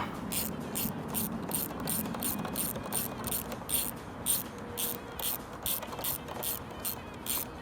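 Hand ratchet wrench clicking steadily as a bolt is turned, about three clicks a second.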